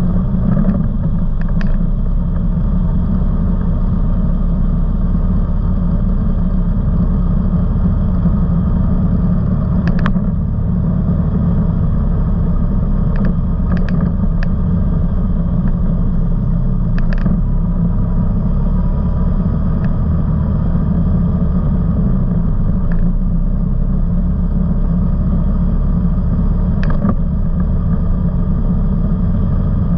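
Off-road vehicle's engine running steadily with a low rumble as it drives along a sandy dirt trail, with a few brief sharp knocks and clicks from the ride over bumps.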